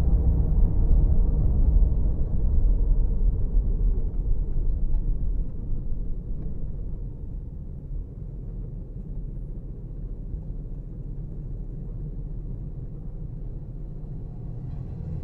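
Low road and engine rumble heard from inside a moving car. It eases off about six to eight seconds in as the car slows to a stop at a red light, then settles into a quieter steady rumble while the car waits.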